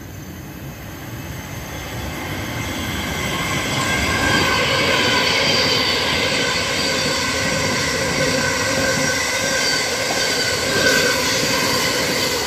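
Electric multiple-unit passenger train passing through the station at speed. It grows louder over the first few seconds, then runs past steadily as a rumble with a steady high whine.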